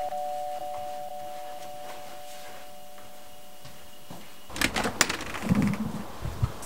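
Electronic doorbell chime ringing out in two held tones with a slight regular pulse, fading away over about four seconds. Then sharp clicks and knocks of the front door latch and door being opened, with a few low thumps.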